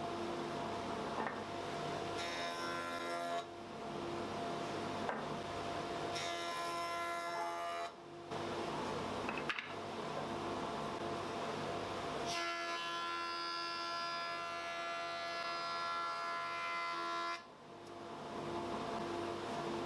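Stationary woodworking power tool running steadily while pieces of hardwood are fed through it. There are three passes, a short one, a longer one and a long one near the middle, each ending in a brief drop in sound.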